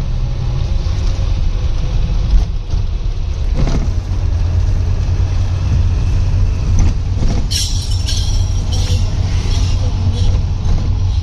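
Car engine and road noise heard from inside the cab while driving, a steady low rumble. About seven and a half seconds in, a brief burst of higher-pitched hissing noise joins it.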